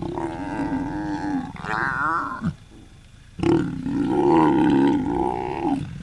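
A pair of lions mating, growling in two long calls. After a short pause, a louder second growl starts about three and a half seconds in.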